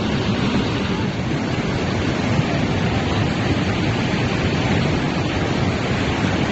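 Loud, steady rushing of fast-flowing floodwater.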